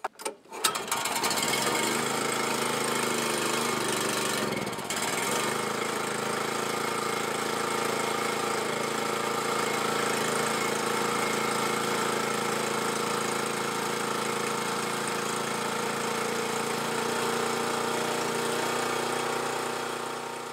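Portable gasoline generator engine starting up within the first second and then running steadily, with a brief dip about five seconds in. It is running on a used spark plug fitted in place of a fouled one that gave no spark.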